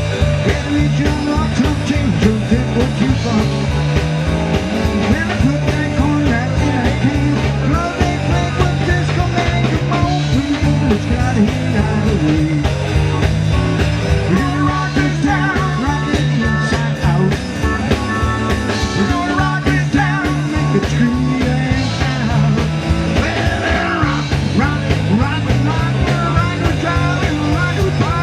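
Live rock band playing an upbeat rock-and-roll number with a singer, a busy moving bass line and a steady beat.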